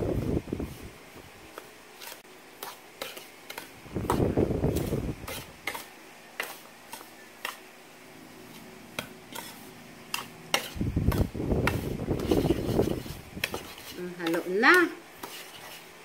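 Metal spoon stirring a dry corn-flour and sugar mix in a ceramic bowl: repeated clinks and scrapes of steel against the bowl, with duller swells of stirring in between.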